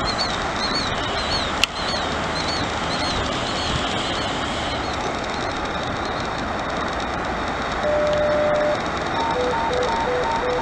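A steady, loud rushing noise, with repeated high chirps through the first half. Near the end a steady tone sounds for about a second, followed by a beeping signal that alternates between a higher and a lower note.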